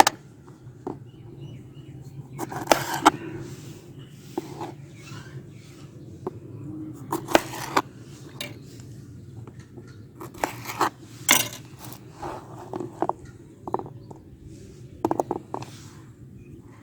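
Knife cutting lemons in half on a board: irregular knocks of the blade going through the fruit and hitting the board, with some short scrapes, over a steady low hum.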